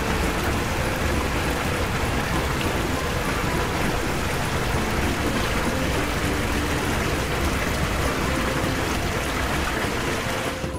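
Steady rushing hiss of a water-spray sound effect, like a fire hose jet, cutting off abruptly at the end.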